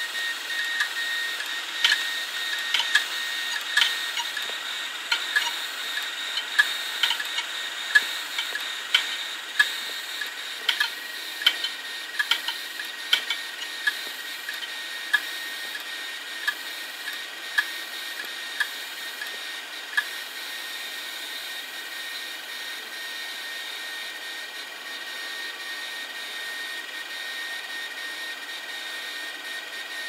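Several opened, failed hard drives running: a steady high whine from the spinning drives, with sharp irregular clicks of the read/write head arms about once a second, the head-seek clicking typical of failing drives. The clicking stops about two-thirds of the way through while the whine goes on.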